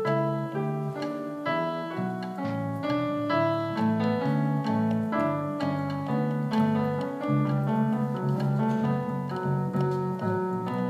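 Instrumental break of a slow love song: a keyboard with a piano sound plays a melody over chords, without vocals.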